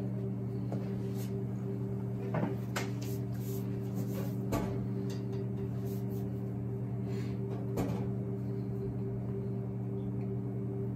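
A steady low electrical hum, with a handful of short knocks and clunks scattered through it as a chair is moved and sat on.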